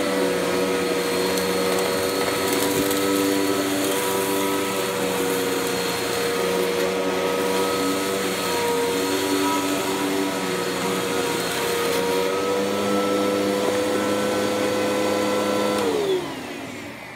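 Tornado CK14/1 Pro upright commercial vacuum running steadily while sucking up dirt from carpet, with small dips in pitch as it is pushed. Near the end it is switched off and its motor winds down with a falling pitch.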